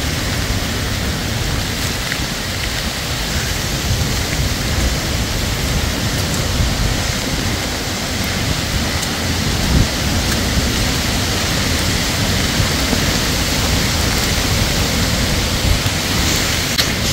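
Heavy storm rain falling steadily on leaves and ground, with a low, uneven rumble underneath.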